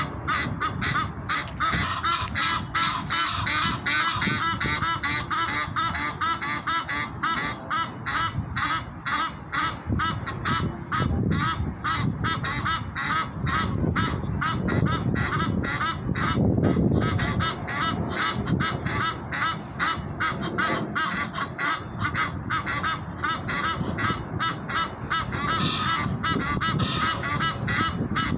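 Egyptian geese honking over and over in a fast, even run of harsh calls, about two to three a second, that carries on without a break.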